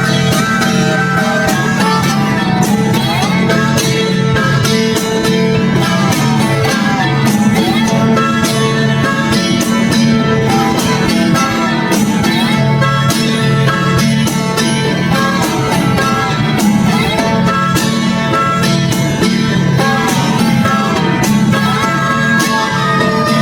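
Background bluegrass-style music with plucked guitar and banjo, playing steadily.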